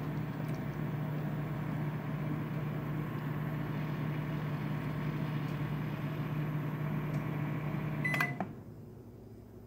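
Microwave oven running with a steady hum. About eight seconds in the stop button is pressed: a short beep, and the hum cuts off.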